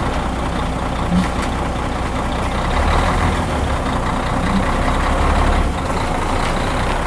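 A loud, steady rumbling noise, heaviest in the low end, like a heavy engine running.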